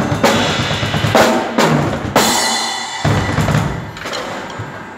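Acoustic drum kit played hard: accented hits on bass drum, snare and cymbals, the last strikes about three and a half seconds in left to ring out and fade.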